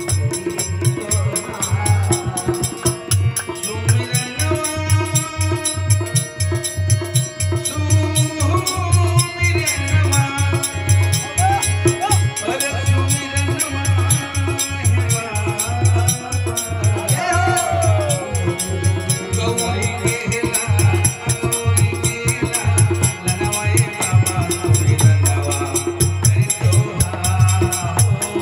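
Live Indian devotional folk song: a man singing over a fast, steady drum beat and a jingling rattle-like percussion, with sustained instrumental tones underneath.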